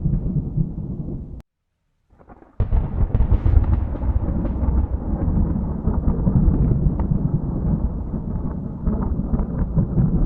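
Thunder rumbling deep and low. It cuts off abruptly about a second and a half in, leaving a moment of silence, then a new peal cracks in sharply and rolls on.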